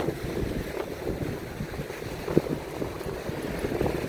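Wind rumbling on the microphone over the wash of ocean surf, with a few soft thumps, the loudest about two and a half seconds in.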